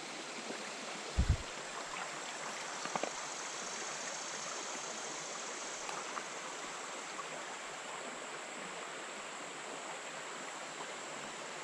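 Steady rush of a small creek's flowing water, with a brief low thump about a second in and a couple of faint clicks soon after.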